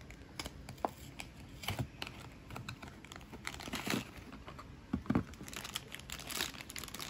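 A small cardboard Mini Boos blind box being opened by hand and its crinkly yellow plastic bag pulled out and handled: irregular crinkling and rustling, with a few sharper crackles.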